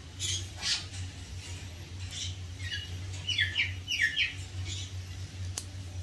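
Rainbow lorikeet biting sugar cane, with a few short crunches in the first two seconds, then a run of short, falling squeaky chirps from a parrot, in two or three quick clusters in the middle.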